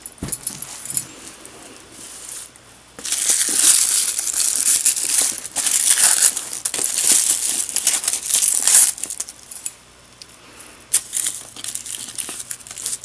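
Tissue-paper wrapping crinkling and rustling as hands pull it off a leather backpack's straps. A long loud stretch of crinkling in the middle, then softer scattered crinkles near the end.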